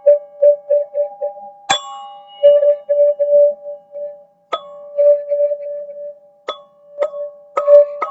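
Teal ZenTube being played: struck notes ring on two pitches. A soft, quick repeat of the lower note comes at the start, then single strokes follow every couple of seconds, the strongest about two seconds in. The strokes quicken near the end.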